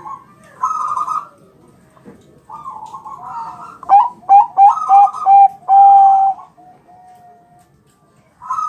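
Zebra dove (Bangkok-strain perkutut) cooing. Softer phrases come first, then from about four seconds in a run of five short, loud notes ending in one long held note.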